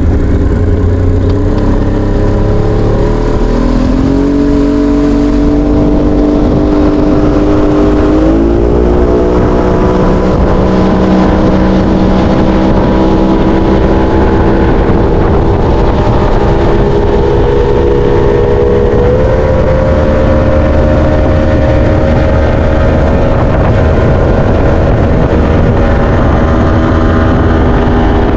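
Boat's outboard motor running under way, its pitch climbing in steps as the throttle is opened about three, eight and nineteen seconds in, then holding steady at speed.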